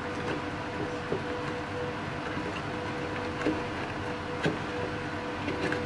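Quiet handling of a small plastic device case as two antenna leads are pushed into it: a few soft clicks and taps over a steady low hum.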